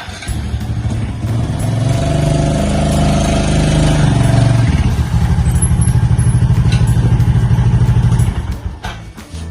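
An engine running close by: its pitch climbs as it revs, then holds at a steady, rapidly pulsing idle, and it cuts off suddenly about eight seconds in.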